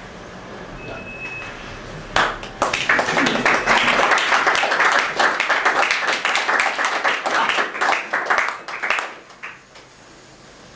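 A small group applauding, starting about two seconds in and dying away near the end.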